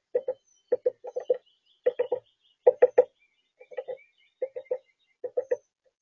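Chickadee hammering a seed with its bill on the feeder rim: sharp taps in quick groups of two or three, repeating every half second or so. Faint birdsong in the distance.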